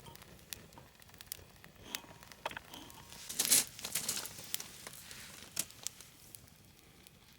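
Crinkling and rustling as something is handled, with scattered light clicks; loudest about three and a half seconds in.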